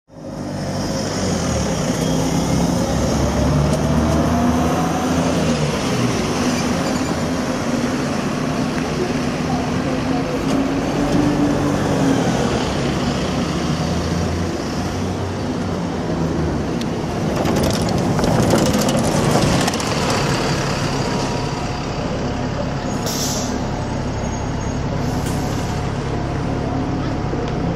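Bus engines running as buses drive through the station, the engine note rising and falling as one pulls away, over traffic noise. Two short high hisses of bus air brakes near the end.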